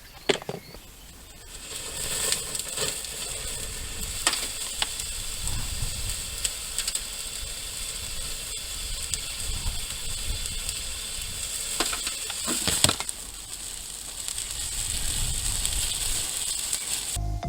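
Thermite burning with a steady fizzing hiss, broken by sharp cracks and pops every few seconds; the loudest pop comes about 13 seconds in.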